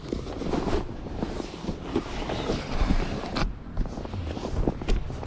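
Rustling and scraping of fabric as the foam sleeping mattress and bedding are handled and moved, with wind buffeting the microphone.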